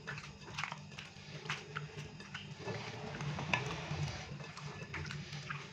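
Raw chicken pieces wet with lemon juice and ginger-garlic paste squelching as a hand mixes them in a glass bowl, in short irregular squishes.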